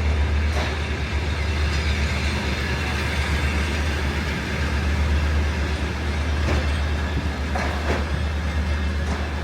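Train at a railway station: a steady low rumble with a few short metallic clanks, one about half a second in and several more between six and eight seconds in.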